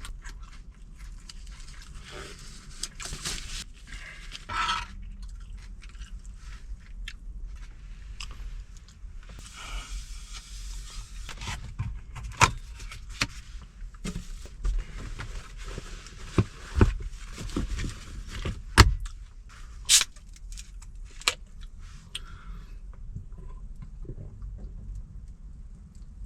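Scraping, rustling and sharp clicks from handling utensils and food containers, with several louder knocks in the second half.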